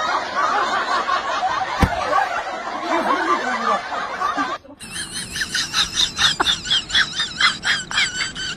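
Giggling laughter with a single sharp knock about two seconds in. After a sudden cut past the middle, a rapid string of warbling high-pitched calls comes at about four a second.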